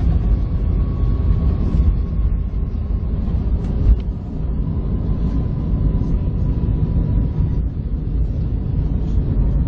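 Jet airliners on landing approach: a steady low rumble with a faint steady whine that fades out about three quarters of the way through.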